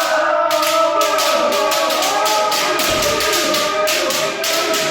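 Kendo practice: several people holding long kiai shouts over a quick, irregular series of sharp smacks, from bamboo shinai striking armour and feet stamping on a wooden floor.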